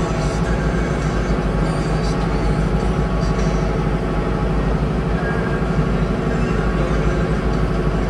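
Mahindra tractor's diesel engine running steadily at a constant speed, with a deep pulsing rumble.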